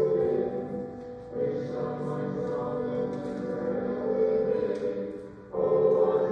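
Church congregation singing a hymn in held notes, with short breaks between phrases about a second in and near the end.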